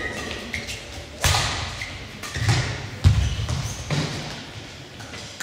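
A badminton rally: a sharp racket strike on the shuttlecock about a second in, then several heavy thuds as the players' feet land and lunge on the court floor.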